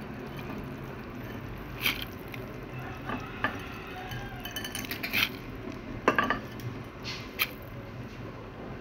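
A wooden stirring stick knocking and scraping against a metal cooking pot several times while noodles are stirred into soup, over a steady low hum.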